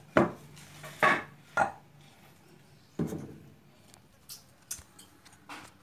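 Irregular sharp knocks from bearing work on a steam cleaner's electric motor, a bearing being tapped with a hammer and a wooden block: four loud knocks in the first three seconds, then a few lighter taps.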